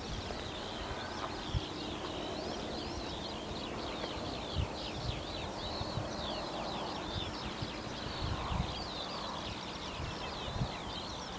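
Birds singing outdoors, a dense, unbroken run of quick high chirps and trills. Underneath is a low rumbling noise with a few short soft thumps.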